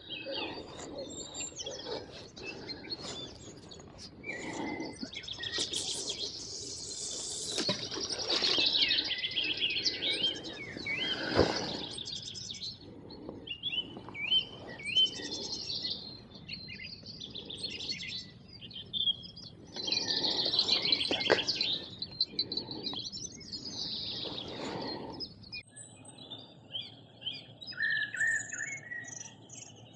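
Several songbirds singing and chirping in riverside trees, with rustling and handling noise and one sharp knock near the middle.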